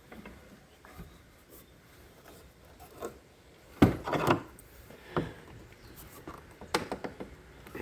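Knocks, clunks and scraping as the homemade base of a Park Tool PCS-12 bench-top bike repair stand is fitted into a workbench. The loudest clunk, followed by a short scrape, comes about halfway through, with a few lighter knocks before and after.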